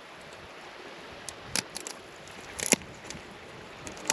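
A knife cracking and prying into a spider crab's shell: a handful of short, sharp cracks and crunches, the loudest a little under three seconds in.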